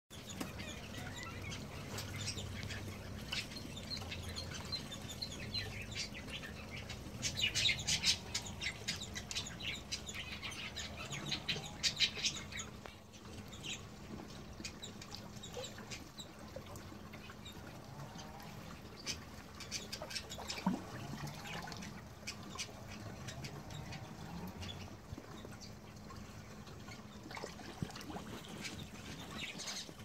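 Backyard aviary birds calling: bursts of quick high chirping and twittering, busiest about seven to twelve seconds in, with scattered fainter calls later, over a steady low hum.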